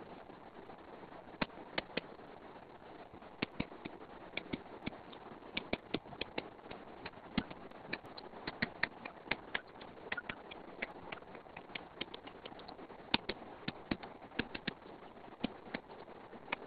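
Stylus tip tapping and clicking on a tablet's glass screen during handwriting: irregular sharp taps, sometimes in quick clusters, over a steady background hiss.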